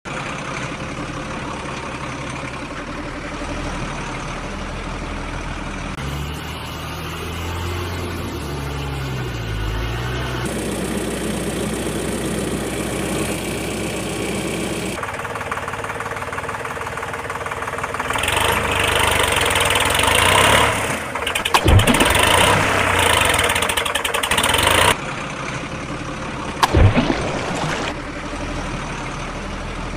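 Truck engine sound running, its tone changing abruptly every few seconds, louder and harsher for a stretch after the middle.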